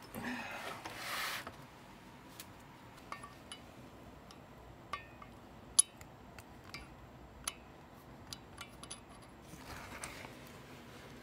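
Faint handling sounds of engine valves and an aluminium cylinder head: a brief rubbing rustle at the start, then scattered light metallic clicks and taps as the oiled valves are worked into place, one sharper click a little before the middle.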